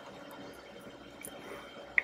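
Soft, wet close-up chewing of chocolate mousse cake, with a sharp click at the very end.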